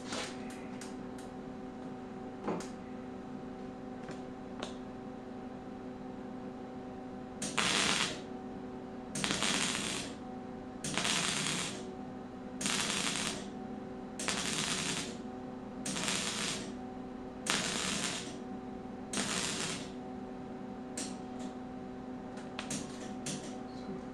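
Wire-feed welder stitch-welding sheet metal: eight short bursts of arc crackle, each about a second long, evenly spaced, with a few brief crackles near the start and near the end. A steady hum runs underneath.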